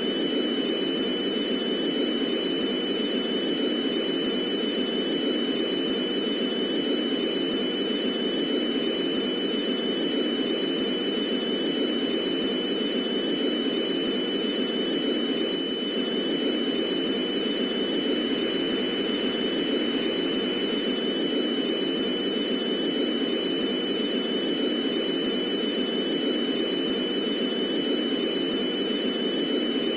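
Steady static hiss filling the gap between broadcast alert messages, with two thin, high steady whines running through it.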